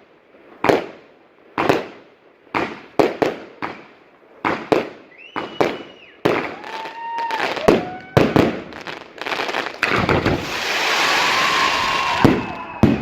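Aerial fireworks salute going off: sharp bangs about once a second, then from about five seconds in whistles rising and falling among the bangs, and a dense crackling hiss near the end.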